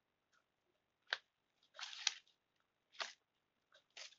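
Paper puppet being handled close to the microphone: four short, crisp paper rustles about a second apart, the second a little longer.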